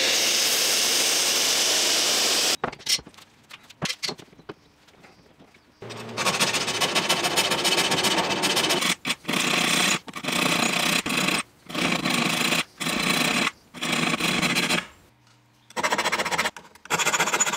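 A hand file filing across the steel teeth of an old Japanese ooga rip saw, sharpening the teeth. One long stroke, a quieter stretch with a few light clicks, then a run of strokes about a second each with short pauses between them.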